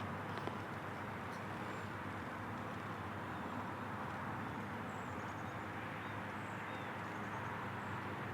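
Steady outdoor background rush with a low hum, and a few faint bird chirps about halfway through and later.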